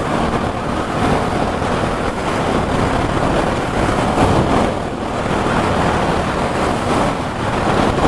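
Steady rushing wind on the microphone of a motorcycle on the move.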